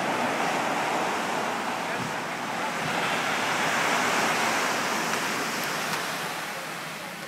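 Ocean surf breaking and washing up a sandy beach: a steady rush of noise that swells about halfway through and falls away near the end.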